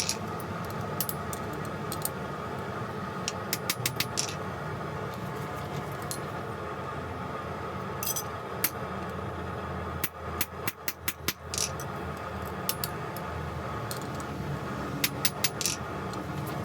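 Light metal taps in short quick runs, several clusters of sharp clinks, over a steady drone of running shop equipment.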